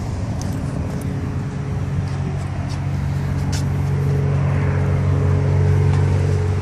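A motor vehicle's engine running, a low steady drone that swells louder over the last couple of seconds.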